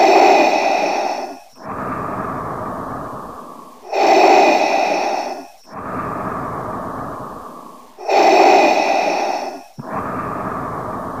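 Darth Vader's mechanical respirator breathing. There are three slow breaths about four seconds apart, each a loud hissing inhale of about a second and a half followed by a longer exhale that fades away.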